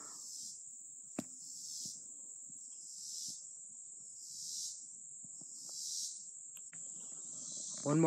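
A high, steady insect chorus from the surrounding woods, swelling and fading in slow waves about every second and a half. A single sharp click comes about a second in.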